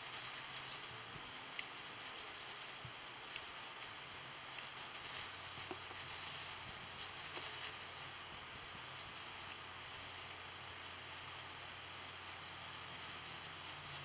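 Thin gloved hands working hair-colour cream through hair: a soft, uneven rustling that comes and goes.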